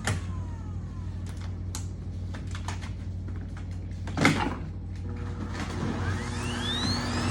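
Vacuum cleaner motor winding down with a falling whine, then scattered clicks and knocks over a steady low hum, one louder knock about four seconds in. Near the end the vacuum switches back on, its whine rising as the motor spins up.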